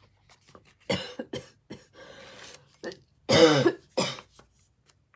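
A woman coughing: a short cough about a second in, then a louder cough or two about three and a half seconds in. Soft paper rustling between them.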